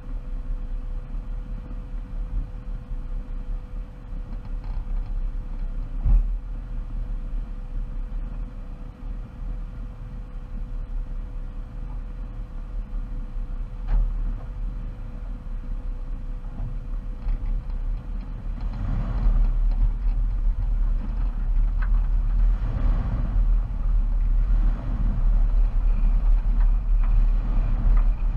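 2006 Jeep Wrangler Unlimited's 4.0-litre straight-six running with a steady low rumble while the Jeep sits still, then growing louder and rougher about two-thirds of the way through as it drives off along the dirt road.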